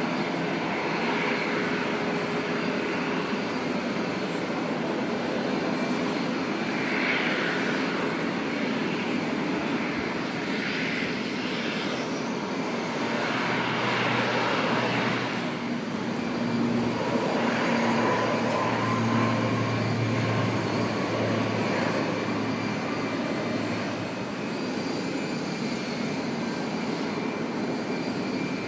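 Aircraft engines running: a steady rushing noise, with faint humming tones in the second half, one of them slowly rising in pitch.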